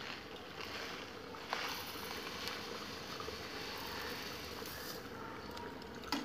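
A plastic bag of white sugar rustling as sugar is scooped and poured from it into a pan of simmering payesh, louder from about a second and a half in, over a faint steady hiss.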